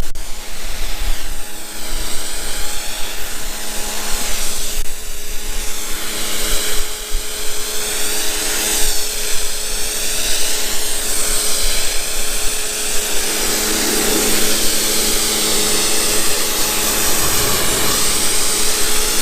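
Pressure washer running and spraying through a 40-degree nozzle on a handheld gun: a steady pump-motor hum under a loud hiss of water spray that swells and fades as the jet is swept about.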